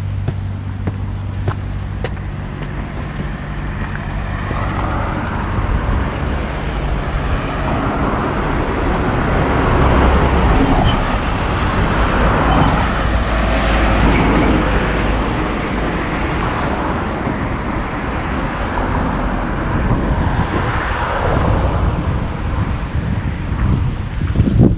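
A vehicle's low engine rumble that builds over several seconds, stays loud through the middle, then fades, over steady outdoor background noise.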